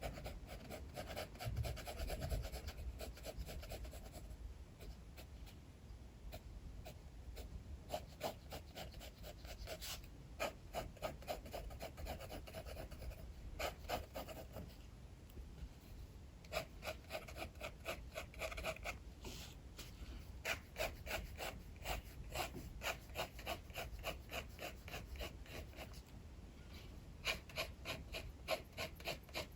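Sketching on paper: runs of quick, short scratchy strokes, several a second, in bursts with brief pauses, over a low steady rumble of wind.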